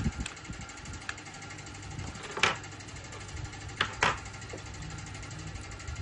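A few sharp clicks of a small screwdriver and a loose metal bracket from an iPhone's connector shield being handled and set down on a wooden tabletop: one about two and a half seconds in, then two close together about a second later, over a faint steady hum.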